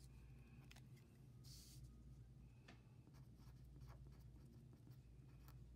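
Faint strokes of a Sharpie felt-tip marker writing on a paper workbook page, over a low steady hum.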